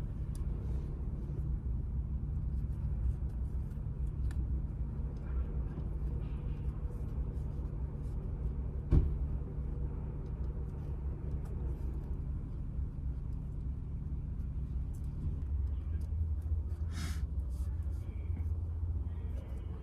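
Steady low rumble of a car's interior on the move, with a single sharp click about nine seconds in and a brief breathy hiss near the end.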